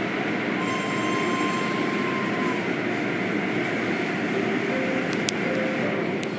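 Automatic car wash tunnel running: a steady rush of water spray and spinning cloth wash curtains over machinery rumble, with a faint whine for a couple of seconds near the start.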